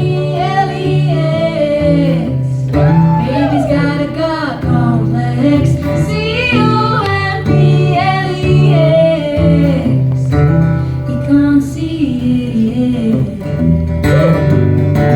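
Live rock song: a woman singing the melody over guitar, with a bass line underneath.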